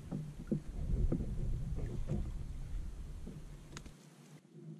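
Scattered small knocks and clicks as a fish is unhooked from a landing net on a kayak, over a low rumble.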